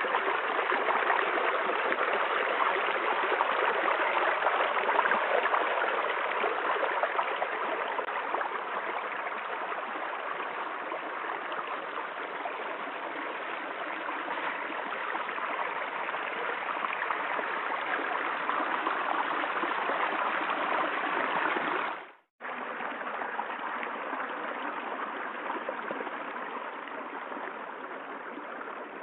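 Steady rush of water from a waterfall. It cuts out for an instant about two-thirds of the way through, then resumes a little quieter.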